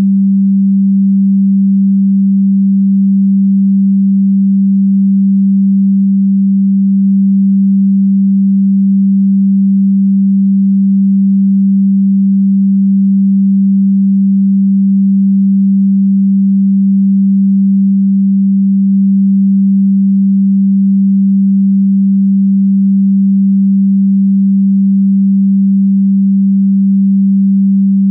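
A single electronically generated sine tone held perfectly steady, pitched low near the G below middle C, with no change in pitch or loudness.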